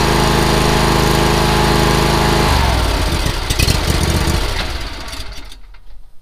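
Exmark Vantage lawn mower running steadily, then shut off about two and a half seconds in. The machine winds down with some rattling and goes quiet about five and a half seconds in.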